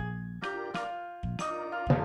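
Bright, jingly children's background music, with a beat of struck notes about twice a second.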